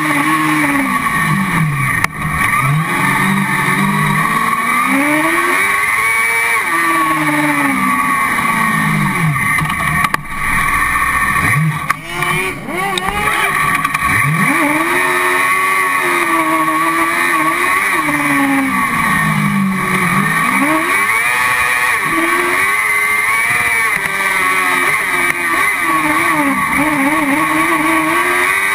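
Car-cross buggy's engine heard from inside the cockpit, running hard on a dirt track: the revs climb and fall every few seconds, with brief lifts of the throttle about 2, 10 and 12 seconds in.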